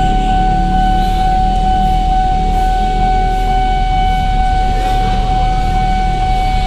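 Railway level-crossing warning alarm sounding as one loud, unbroken electronic tone, over a low rumble, signalling an approaching train.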